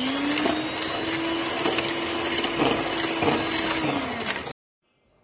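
Takada electric hand mixer running, its beaters whisking eggs and sugar in a stainless steel bowl: the motor speeds up at the start, holds a steady hum and whine with a few clicks of the beaters against the bowl, then winds down shortly before four seconds and cuts off suddenly.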